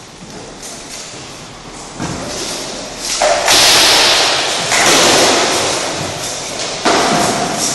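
Rattan sticks striking a shield and armour in an exchange of blows: several loud, sharp hits from about two seconds in, each ringing on in the echo of a gymnasium.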